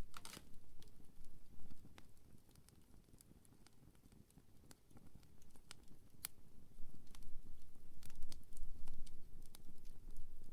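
Wood campfire burning, with scattered sharp crackles and pops from the wood over a low rumble of flame. The crackles thin out for a few seconds in the middle, then come more often as the low rumble grows louder near the end.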